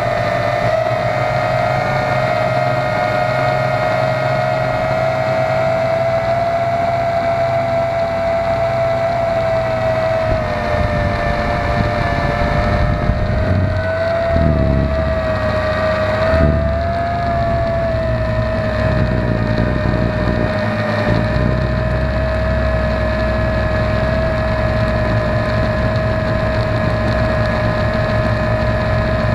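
Quadcopter's electric motors and propellers whining steadily in flight, heard from an action camera mounted on the drone's frame, the whine wavering slightly in pitch. Wind rumbles on the microphone underneath, heavier for a few seconds in the middle.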